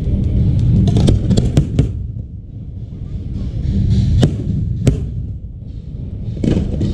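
Aerial fireworks going off: a quick run of sharp bangs about a second in, then crackling and two more single bangs around four and five seconds in, over a continuous low rumble of distant bursts.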